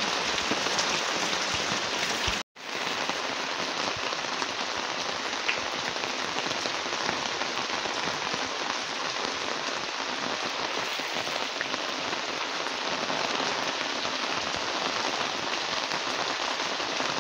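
Heavy rain pouring onto a wet concrete lane and brick walls, a steady dense hiss. About two and a half seconds in, the sound drops out for an instant at a cut, then the rain resumes.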